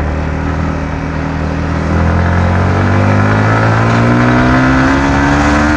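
Stock Yamaha MT-15's 155 cc single-cylinder engine and exhaust pulling hard under acceleration with two riders aboard. It holds a steady pitch at first, then climbs steadily from about two seconds in.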